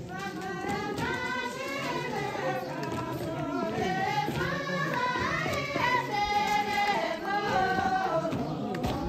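A group of voices singing a song together, with some long held notes.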